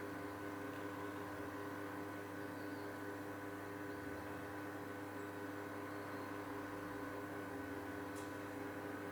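A steady hum made of several held tones over a faint hiss, unchanging throughout, with one faint, brief high-pitched tick about eight seconds in.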